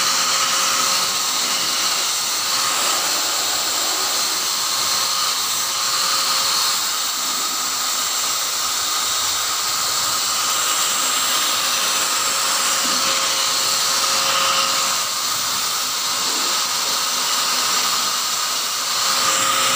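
Handheld electric blower running steadily, blowing dust out of a desktop computer case: a loud, even rush of air with a high motor whine.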